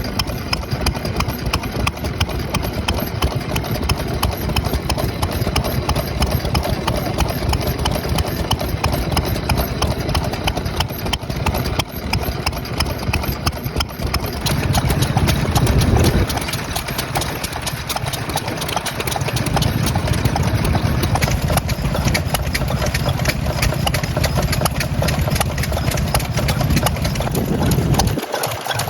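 Vintage Shin-Aichi Kigyo 'Gokoku' stationary engine running steadily, with a fast, even beat of firing strokes.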